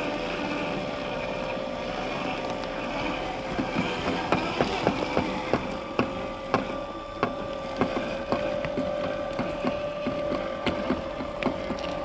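Electric drive motor and gearbox of an RC scale crawler with a Blazer K5 body whining at a steady pitch as it crawls slowly. From about four seconds in to near the end there is a run of sharp cracks and clicks as the tyres go over sticks and roots.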